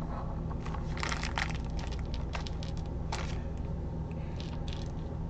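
Small wax seal beads clicking and rattling as they are picked through by hand and dropped into a metal wax melting spoon. A quick flurry of clicks comes about one to three seconds in, then a few scattered fainter ones.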